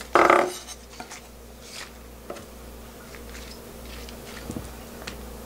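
Kitchen knife cutting green onion on a wooden cutting board. A short louder cut comes right at the start, followed by a few light taps and clicks as the knife and pieces are handled.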